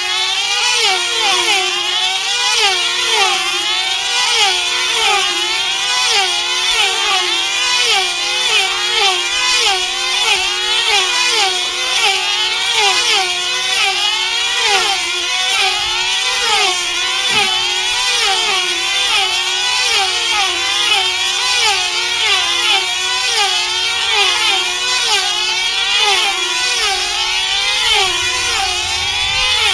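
Several F2C team-race control-line model aircraft, their small 2.5 cc diesel engines screaming at full speed as the models circle the pilots. Their overlapping pitches rise and fall over and over as each model passes.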